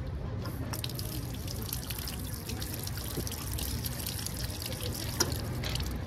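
Cold water running from a metal wall tap into a stone trough, splashing and dripping over cupped hands as someone drinks from it. Under it runs a low steady rumble.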